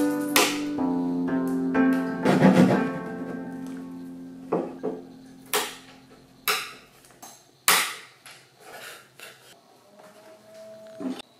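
Plucked-string background music fading out over the first few seconds, with a scraping burst in it, then about a dozen sharp, irregularly spaced clicks and taps from hand work: a steel blade and thin binding strips being trimmed and pressed into place along a wooden instrument body.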